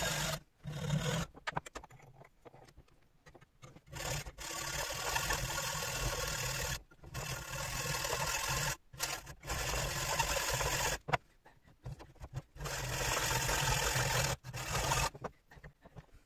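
Hacksaw cutting through cast aluminium, sawing off the sprue and riser stubs from a sand-cast aluminium gear. It comes in several spells of sawing, each one to three seconds long, with short pauses between.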